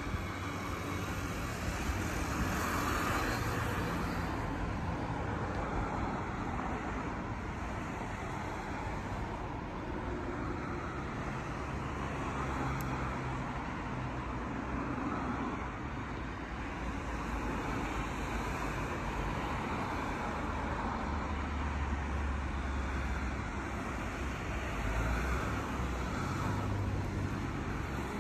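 Steady outdoor background noise: a low, wavering rumble under a broad hiss, with no distinct events.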